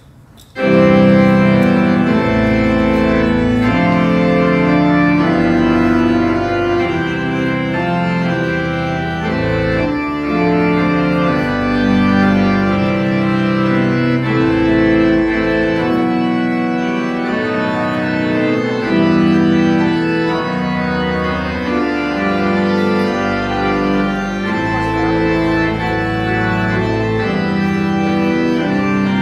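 Organ music starting suddenly about half a second in: held chords over a moving bass line, played as the closing music of a church service.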